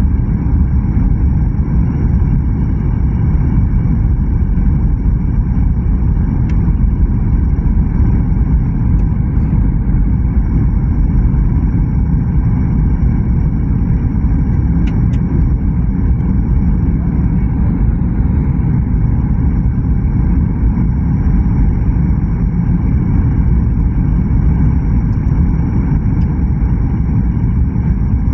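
Steady low roar inside a jet airliner's cabin on approach to landing: engine and airflow noise heard from a window seat, with a faint steady high whine.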